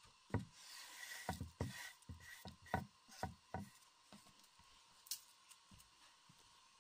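Gloved hand sweeping broken eggshells off a wooden board: shells rustling and scraping, with a quick run of light knocks on the wood over about three seconds. One sharp click follows about five seconds in.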